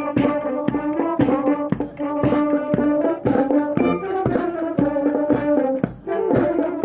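Marching band of brass and drums playing a march: sustained brass chords over a steady drum beat.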